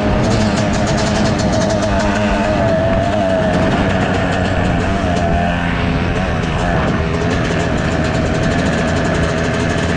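2019 Yamaha YZ250's 250 cc single-cylinder two-stroke engine running as the bike rides along at a fairly steady throttle, its pitch wavering slightly up and down.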